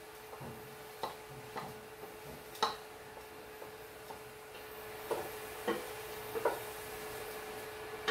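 A spatula tapping and scraping against a bowl and the rim of a stainless steel pot as chopped onions are knocked in: a handful of sharp taps, the loudest about two and a half seconds in. A steady faint hum runs underneath.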